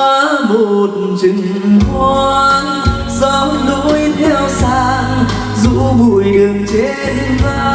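Karaoke backing track of a slow ballad with a soft beat, with a male voice singing over it through a microphone and PA.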